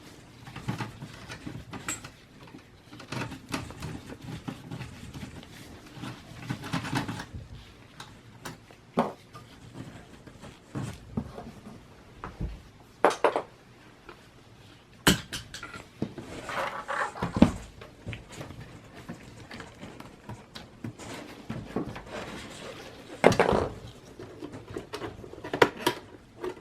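Irregular clicks, knocks and short scrapes of plastic and metal computer case parts being handled and pried apart while a Dell Optiplex 780 small form factor desktop is disassembled.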